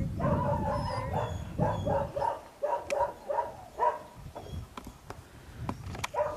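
A dog barking repeatedly in short, even-pitched yaps, about three or four a second, stopping about four seconds in, with wind rumbling on the microphone.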